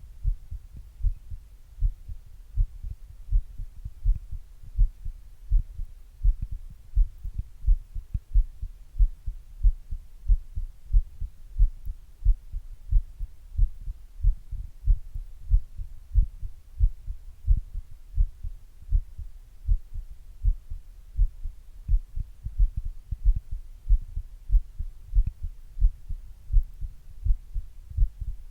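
A human heartbeat picked up by an earbud microphone held to the chest with a glass: a steady rhythm of short, low thumps.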